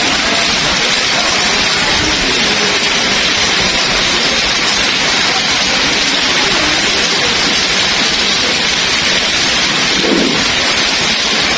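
Heavy rain pouring down in a steady, dense hiss, with a brief lower sound about ten seconds in.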